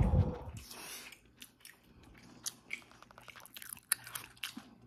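Close-miked eating of steamed rice and spicy soup from a spoon: a short, strong puff of breath at the start, then wet chewing with many quick lip-smacking clicks.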